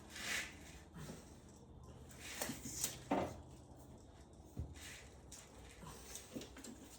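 Scattered handling noises from work on the truck's spark plug wires: a few short rustles and knocks, the loudest about three seconds in, then a low knock, over a faint low hum.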